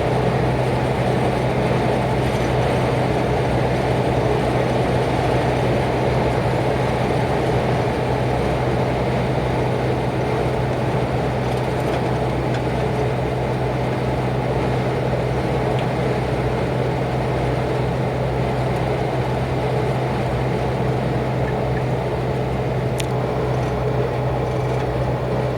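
Steady drone of a lorry on the move, heard from inside the cab: a low engine hum with road noise, unchanging in level.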